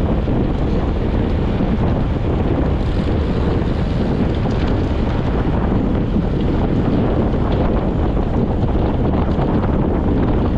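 Steady wind noise rushing over the microphone of a camera on a road bike riding at about 35 km/h.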